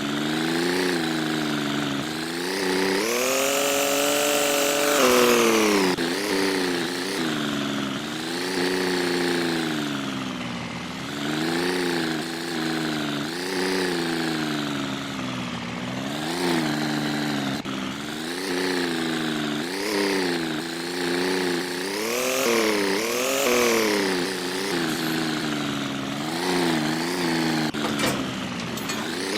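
An engine running under changing throttle, its pitch rising and falling every second or two, with one longer, higher rev about four seconds in.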